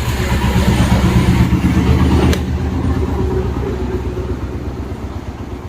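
Ceiling fan motor humming as it is powered for a wiring test before its capacitor is fitted, with a sharp click about two seconds in, after which the hum slowly fades.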